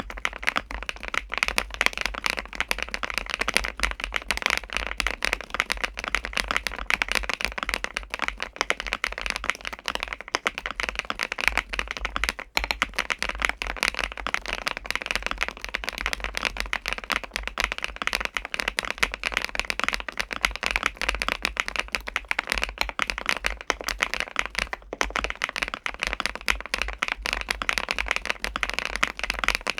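Fast, continuous typing on a KiiBOOM Phantom81 Lite mechanical keyboard, with its light, smooth Mochi switches, PC plate, PC keycaps and foam-filled ABS case: a dense stream of keystroke clacks with a few short pauses.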